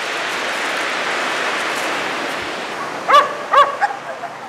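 Surf washing over a shingle beach, swelling and fading, then a dog barks twice in quick succession, high sharp barks, with a smaller third yap just after.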